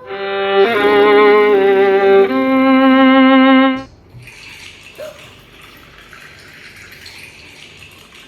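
A short burst of bowed-string music: a few loud held notes with vibrato, cutting off about four seconds in. After it comes a steady, fainter hiss of water being poured into a glass.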